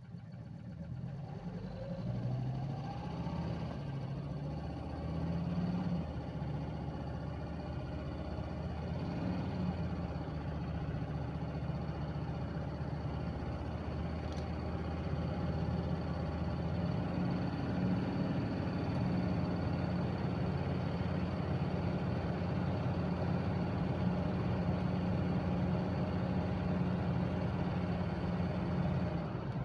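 Mercedes-Benz W123 300D Turbodiesel's five-cylinder turbodiesel engine running steadily. A rising whine comes in during the first few seconds as the engine note picks up.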